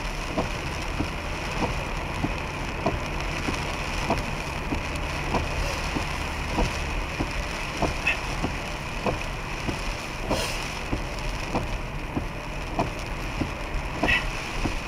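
Heard from inside a car driving in heavy rain and wind: a steady wash of rain and wet-road tyre noise over a low hum, with frequent irregular ticks.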